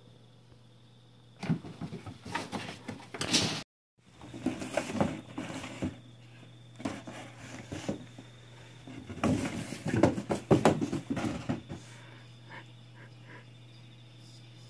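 A kitten scrabbling, scratching and bumping about inside a cardboard box, in irregular bursts of scratches and knocks against the cardboard. It starts about a second and a half in, stops briefly near 4 s, is loudest around 10 s, and dies down to a few faint ticks after about 12 s.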